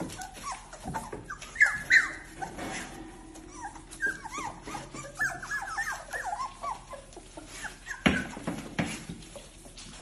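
A litter of young puppies whimpering and squealing, many short high squeaks overlapping for several seconds. A couple of sharp knocks come about eight seconds in.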